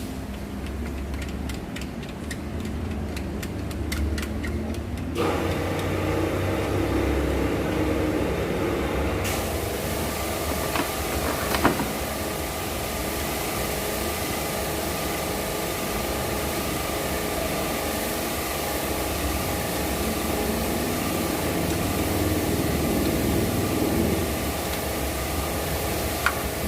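Four-cylinder car engine idling steadily, a low rumble, running on four newly fitted ignition coils and spark plugs after a misfire and rough idle. About five seconds in, a louder, brighter layer of mechanical noise joins the rumble.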